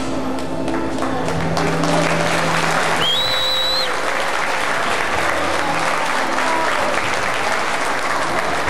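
Crowd applauding steadily in a hall, with a single shrill whistle about three seconds in that rises and then holds for about a second.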